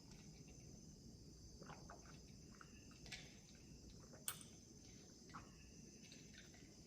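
Near silence during quiet eating: soft mouth and chewing clicks, with two sharper clicks about three and four seconds in, over a faint steady high hum.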